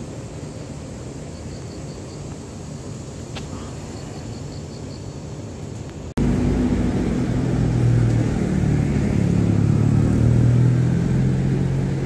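Road traffic noise on a city street, a steady hum at first. After a sudden cut about halfway, a much louder, steady low rumble of vehicle engines close by takes over.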